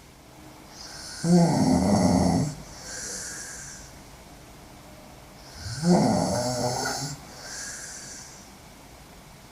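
A sleeping woman snoring hard: two loud snores about four and a half seconds apart, each followed by a softer, breathy out-breath.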